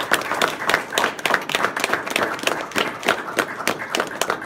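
Audience applauding, a dense patter of hand claps.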